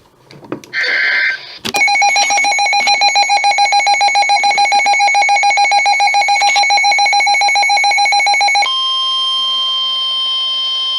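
NOAA Weather Radio alert sequence. A short burst of SAME digital header data comes first, then a weather radio receiver's electronic alarm beeps rapidly at one pitch for about seven seconds. After that the steady, higher-pitched 1050 Hz warning alarm tone begins, which signals an alert message is about to be read.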